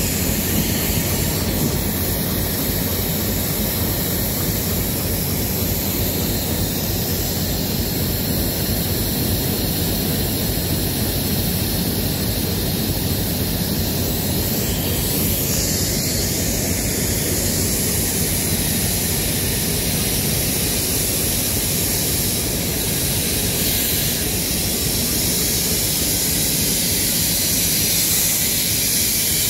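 Steady rushing noise of floodwater flowing across railway tracks, even and unbroken throughout.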